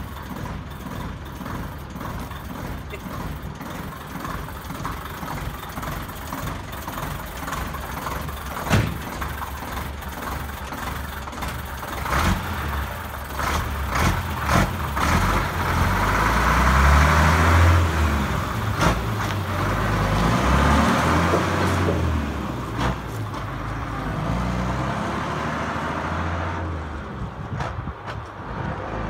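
Leyland Comet lorry's straight-six Leyland 400 Power Plus diesel engine running. It grows louder through the middle as the lorry pulls away, then fades as it moves off into the distance near the end. A few sharp knocks stand out along the way.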